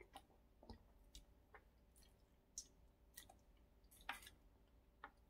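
Faint mouth sounds of a person sipping and tasting spoonfuls of spicy malatang broth: short soft slurps and lip smacks scattered through, with a slightly louder click about four seconds in.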